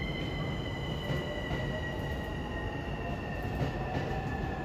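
JNR 185 series electric train at the platform, a low rumble under a high, steady squeal of several tones that slowly drifts down in pitch.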